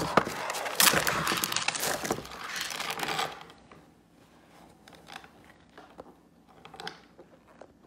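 Tissue wrapping paper and a cloth dust bag crinkling and rustling as a chain wallet is unwrapped by hand. The rustling is loud for about the first three seconds, then drops to quieter rustles and small clicks.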